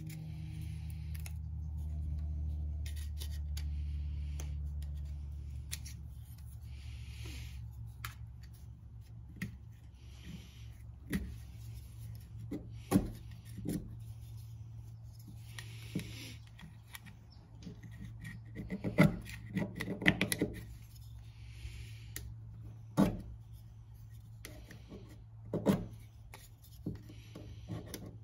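Small metal parts and a hand tool being handled on a workbench: scattered clicks and clinks, with a quick cluster of them about two-thirds of the way through, over a steady low hum.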